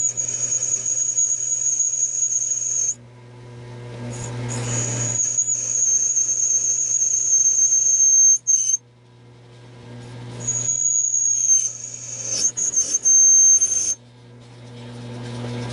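Belt grinder grinding a 5160 spring-steel knife blade before hardening: a loud, steady high-pitched whine over hissing, in three passes that each cut off suddenly, the second swelling in loudness as it goes on, with the grinder motor's low hum beneath.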